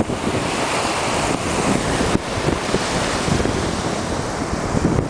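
Wind buffeting the microphone in irregular gusts over a steady wash of sea surf.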